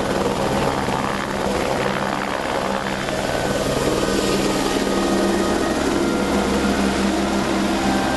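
Helicopter in flight: the rotor and turbine engine running at a steady pitch, a constant low hum under an even rushing noise.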